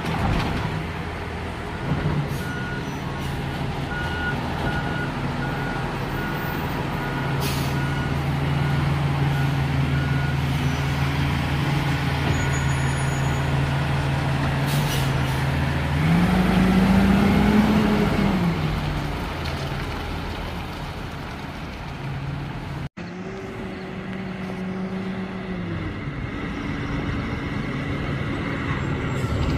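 Diesel engine of a Freightliner M2 garbage truck with a Labrie Helping Hand automated side-loader running, revving up and back down once about two-thirds of the way through as the lift arm works. A short beeping alarm sounds about twice a second for several seconds near the start, with a few short air-brake hisses.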